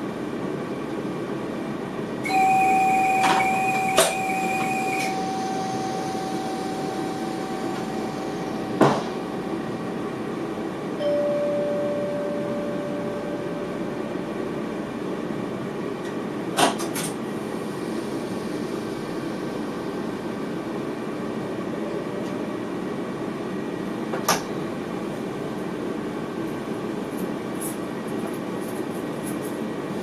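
Steady rumble inside the cab of an NS VIRM electric train. About two seconds in, an electronic tone sounds and fades away over several seconds, and a lower tone follows near the middle. A few sharp clicks are spread through.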